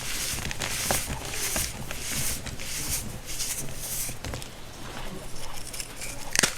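Homemade baking soda crunching and crumbling in a run of soft, gritty crunches, roughly one every half second to a second, with a few sharp crackles among them.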